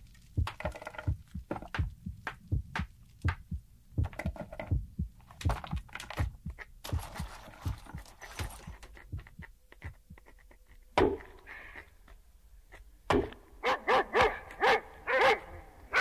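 Stone tools being struck together: sharp knocks, about two to three a second. In the last third a dog barks several times.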